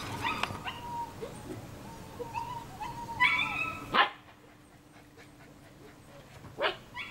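German Shepherd puppies yipping and whining as they play: short high-pitched cries, loudest about three seconds in, then a quieter stretch and a couple of sharp yips near the end.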